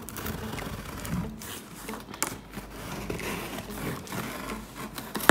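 A large kitchen knife sawing through packing tape along the seam of a cardboard box: a steady scratchy scraping with small crackles as the blade drags through tape and cardboard, and a sharp knock near the end.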